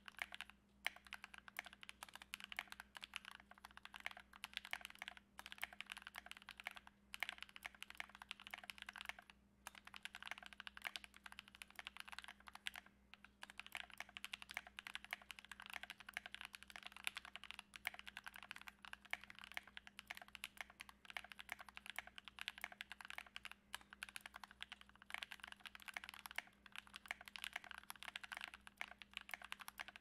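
Fast, continuous typing on a Tofu84 mechanical keyboard with freshly lubed Gateron Yellow linear switches in an aluminium plate and Akko Carbon keycaps, with a few brief pauses between bursts of keystrokes.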